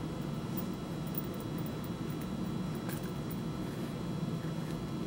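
A steady low hum of background noise, like a running fan or air conditioner, with a few faint ticks and rustles as the leather sheath and its waxed thread are handled during hand-stitching.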